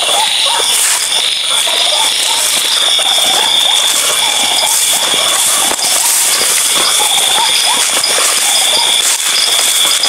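Footsteps on grass and soil as a person walks along a path at night, over a steady high-pitched chorus of night insects.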